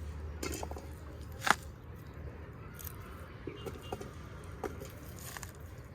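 Scattered light clicks and rustles of hands digging through potting soil and handling freshly dug potatoes, with one sharper click about one and a half seconds in, over a steady low hum.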